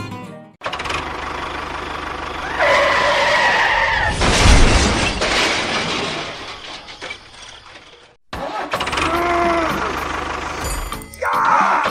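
A small motor running loudly, with a whine that rises and falls in pitch. It cuts off abruptly just after the middle, then starts again.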